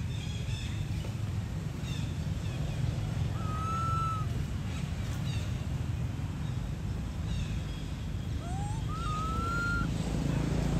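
Two drawn-out whistled animal calls, each under a second and rising slightly before levelling off, about four seconds in and again near the end, over a steady low rumble and faint high chirps.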